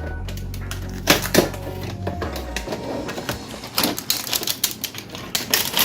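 Crinkling and rustling of the plastic packaging of a box of dry manicotti pasta being handled, in irregular crackles and clicks. Soft background music runs under it and stops about two and a half seconds in.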